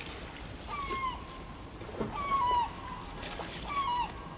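Three short animal calls about a second and a half apart, each a held note that drops in pitch at the end, with a sharp louder sound about two seconds in.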